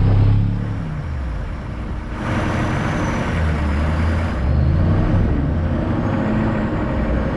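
Several four-wheel-drive engines held at high revs in low range, labouring under heavy load as the vehicles strain against each other on a tow rope. The engine note wavers up and down, and a louder hiss comes in for about two seconds in the middle.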